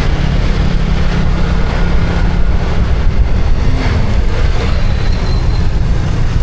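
Motor vehicle on the move: a steady, loud low engine drone with road noise.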